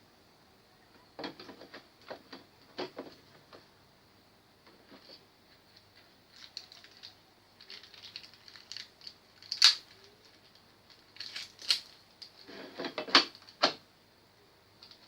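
Irregular clicks, taps and light clatter of small hard parts being handled, in clusters, with a few sharper knocks in the second half.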